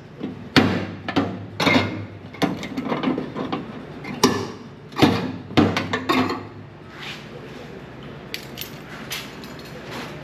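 Irregular knocks and clanks of tools and sheet metal being handled, for about six seconds, then a steadier low background noise.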